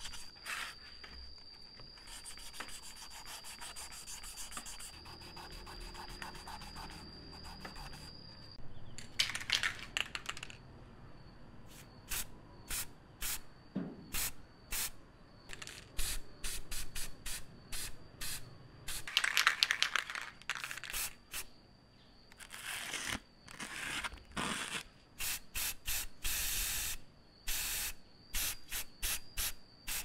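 Hand rubbing the wooden grinder body at first, then an aerosol spray-paint can hissing in many short bursts and a few longer ones as the body is sprayed.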